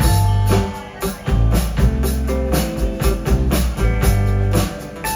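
Live band playing an instrumental passage: electric guitar over bass and drum kit with a steady beat.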